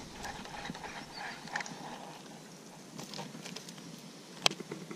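Faint, irregular clicks and ticks from handling a baitcasting rod and reel while working a lure, over a soft outdoor hiss.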